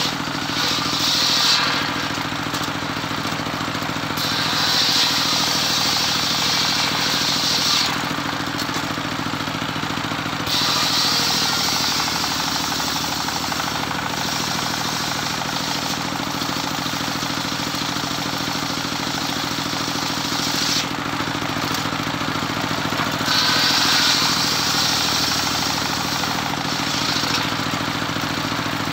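Engine-driven homemade circular sawmill running steadily while its blade cuts teak. The higher cutting sound comes and goes in passes several seconds long over a constant engine drone.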